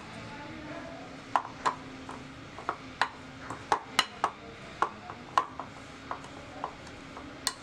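A steel spoon stirring a crumbly mix of roasted flour and melted chocolate in a bowl. The spoon clinks and knocks against the bowl irregularly, about two times a second, with a short ring after each strike.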